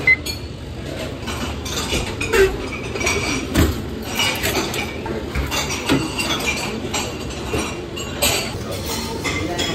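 Dishes and cutlery clinking and clattering irregularly, with scattered sharp knocks.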